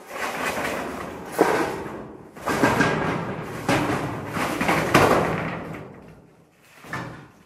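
Corrugated metal roofing sheet scraping and rattling over the roof in about five successive pulls, each lasting about a second, dying away near the end.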